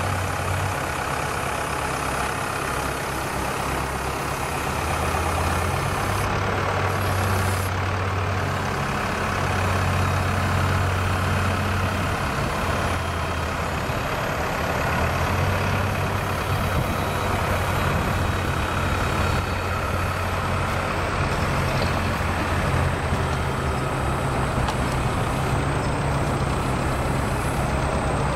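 Tractor engine running steadily while driving the hydraulic crane of a forestry trailer; its low hum swells and shifts in pitch every few seconds as the crane moves logs.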